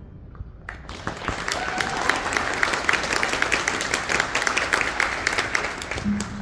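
Audience applauding, a dense patter of hand claps that starts about a second in and stops near the end.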